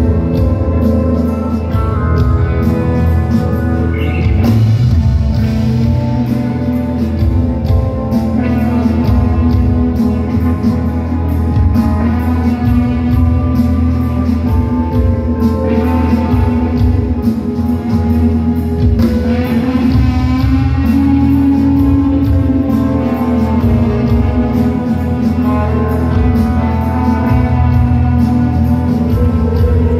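A live rock band playing loudly: electric guitars, bass and drums in a dense, steady mix with a heavy low end.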